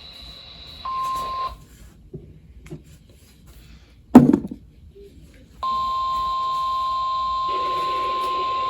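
A short electronic beep about a second in, then a sharp knock. After that a NOAA Weather Radio warning alarm tone, a single steady pitch just above 1 kHz (the 1050 Hz alert tone), comes on over receiver hiss, signalling that a warning broadcast is about to follow.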